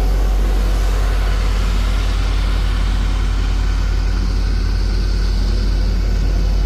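HAMM 311D single-drum road roller's diesel engine running steadily close by as the roller drives over loose soil, a constant deep engine noise.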